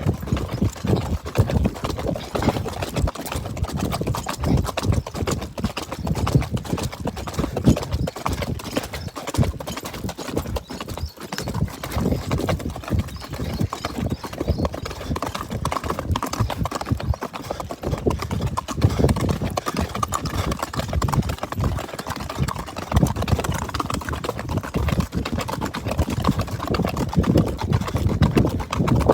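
Marwari horse's hooves striking the ground in a steady, continuous run of hoofbeats.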